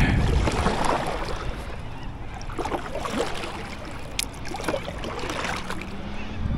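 Water lapping against the hull of a Kayak2Fish NextGen 10 fishing kayak, with scattered small knocks and clicks.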